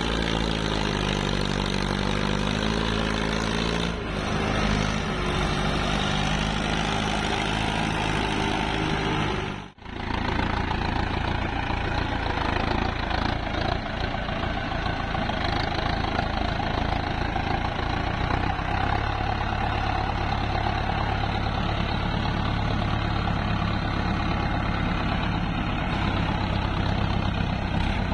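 Diesel tractor and hydraulic excavator engines running, the pitch rising and falling for the first few seconds as an engine is revved. The sound cuts out briefly at about ten seconds, then the engines run steadily.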